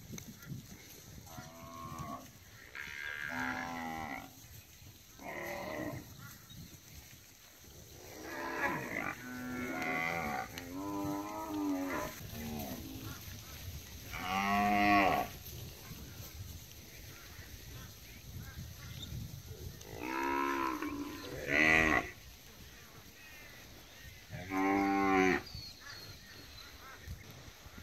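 Young Brahman-type cattle bawling: about a dozen separate calls of around a second each from several animals, with the loudest near the middle and toward the end.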